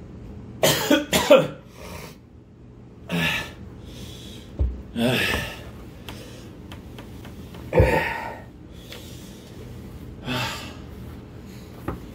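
A man coughing and breathing hard in short forceful bursts a few seconds apart, the strongest around one second in and near eight seconds, reacting to the burn of an extremely hot chili-extract chocolate bar.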